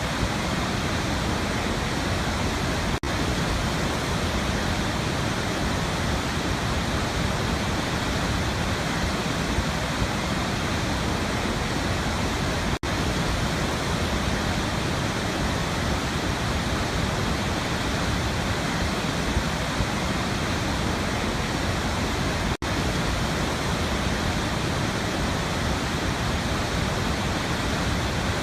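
Waterfall: a steady, even rush of falling water, broken three times by an instant's dropout.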